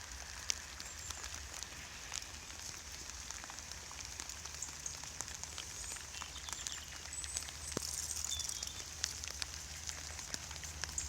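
Outdoor ambience of scattered faint crackling clicks over a steady low rumble, with a few faint high chirps in the second half.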